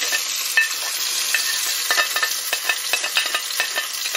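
Chopped onion frying in hot palm oil in a pot: a steady sizzle with many small crackling pops.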